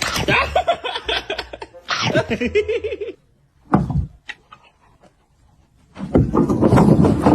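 A person laughing in pulsing bursts for about three seconds. A single sharp click follows, then another loud stretch of sound near the end.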